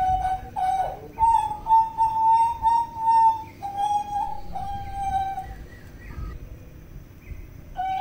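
Papuan butcherbird singing a run of clear, flute-like whistled notes, several held steady for a second or more, with a quieter gap in the second half before the song resumes near the end.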